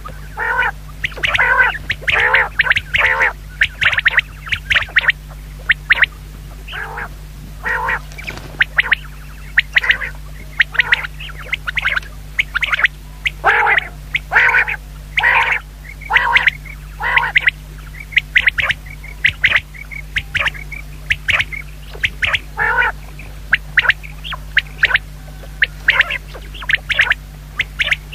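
Common quail calling: short, nasal, squawky notes repeated in quick bunches of two to five, again and again, over a steady low hum.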